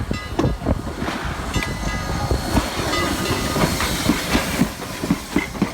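A heritage steam train heard on the move: the wheels clatter with irregular sharp knocks over the track, over a steady rumble and hiss.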